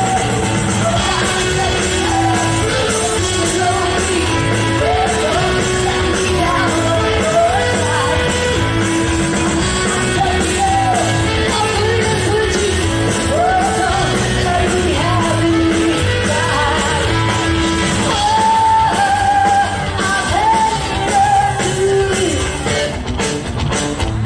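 Live rock music: a singer's voice carrying a melody over a full band, with yells from the crowd.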